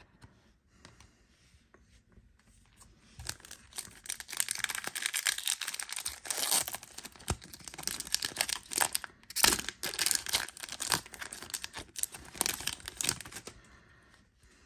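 Foil wrapper of a trading-card pack being torn open and crinkled by hand: a dense run of crackling rips starting about three seconds in and stopping shortly before the end.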